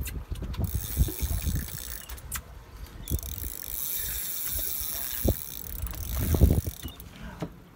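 A conventional fishing reel being cranked to bring in a hooked fish that is fighting on a bent rod: a steady, high mechanical whir from the reel, with irregular low thumps beneath it.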